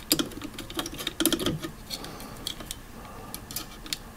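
Small irregular clicks and rattles of Kelvin clip test leads being handled and clipped onto an amplifier's test points, thickest in the first second and a half, then scattered.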